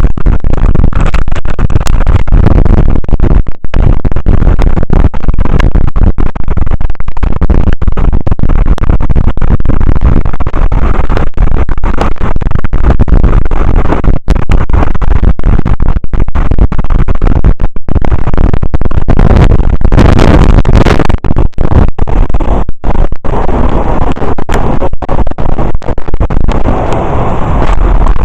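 Strong wind buffeting the microphone: a loud, continuous rumbling roar, heaviest in the low end, that overloads the recording.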